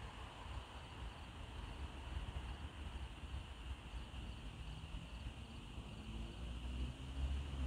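Crickets chirring in a steady high band over a low rumble, which grows a little louder near the end.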